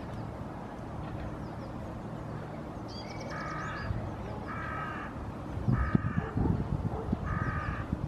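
A crow cawing four times, each caw about half a second long and a little over a second apart. Just before the first caw a small bird gives a quick high trill, and low bumps run under the third and fourth caws.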